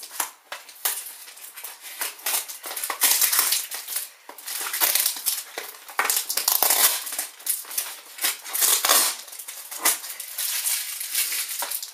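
Gift packaging being handled and opened by hand: paper crinkling and rustling in irregular bursts.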